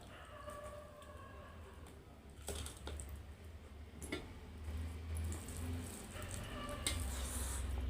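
Close-up eating sounds: wet, squishy chewing and food being handled, with a few sharp clicks scattered through and the noise growing busier in the second half.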